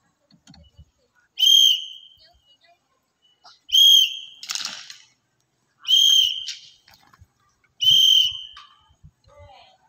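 Drum major blowing sharp command blasts on a whistle: four short, loud blasts of one steady high pitch, about two seconds apart. A brief rushing noise comes just after the second blast.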